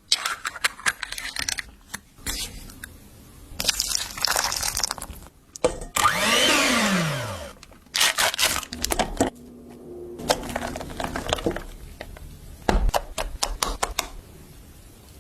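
Food-preparation sounds: sharp clicks, taps and scrapes of utensils and containers. About six seconds in, a small kitchen motor starts loud and winds down with a steeply falling pitch over about a second and a half.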